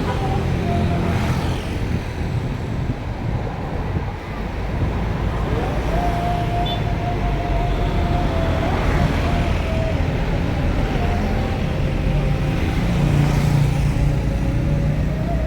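Road traffic with heavy vehicles such as buses running past, a steady low rumble. A faint held tone sounds for a few seconds midway.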